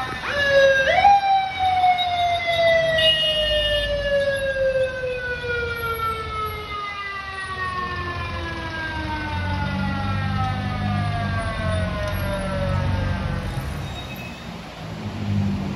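Police motorcycle's manual mechanical siren spun up sharply in the first second, then winding down in one long, slowly falling wail for about twelve seconds. A motorcycle engine's low rumble comes in under it from about ten seconds in.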